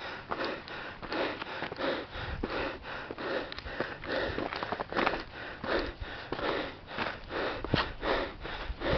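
A hiker's heavy breathing close to the microphone, a quick run of breaths at about two a second: he is out of breath after a steep climb of about 580 metres to the summit.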